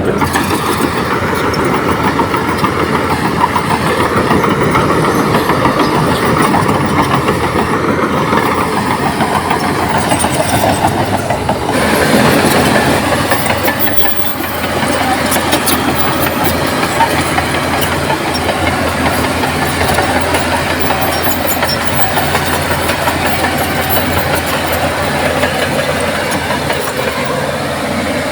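Bulldozer working: its diesel engine running under load with a steady rapid clatter of steel crawler tracks. The engine's sound changes about twelve seconds in and dips briefly soon after.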